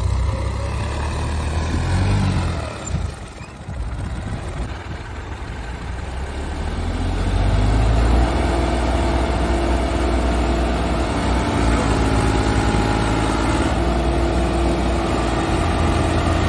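Diesel tractor engines running under load as they work to drag a bogged Massey Ferguson tractor out of deep mud. The sound dips briefly about three seconds in, then the engines rev up about seven seconds in and hold at high revs.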